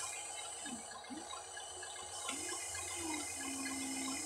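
Small electric motors of a Huina 1593 RC excavator whining as the boom, arm and turntable move, the pitch rising and falling with each short movement and held steady for about a second near the end, over a steady background hiss.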